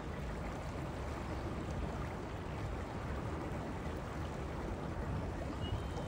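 Yosemite Falls heard from a distance: a steady, even rush of falling water.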